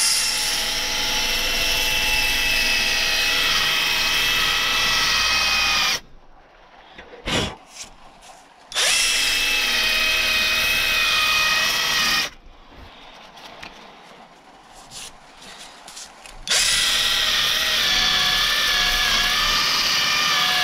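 Cordless drill spinning a backing pad with an 80-grit sanding disc against an alloy wheel rim, sanding out kerb damage. The motor whines in three long runs with short pauses between, plus a brief blip of the trigger in the first pause; its pitch wavers as the disc is pressed to the rim.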